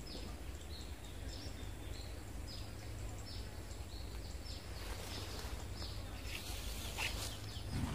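Repeated short, high chirps, each falling in pitch, about two a second, from a small animal, over a faint steady low rumble. A couple of faint clicks come near the end.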